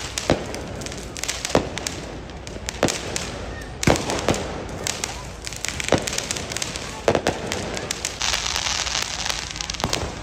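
Diwali fireworks and firecrackers going off: a string of sharp bangs and pops at irregular intervals. About eight seconds in, a steady hiss joins them as a ground fountain firework sprays.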